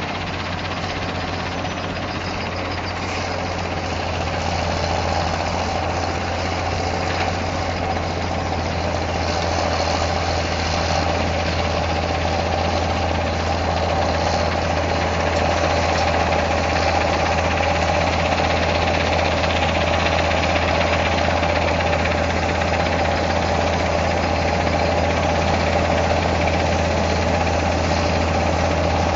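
Komatsu D155 bulldozer's diesel engine running steadily with a deep, even hum, growing slowly louder across the stretch.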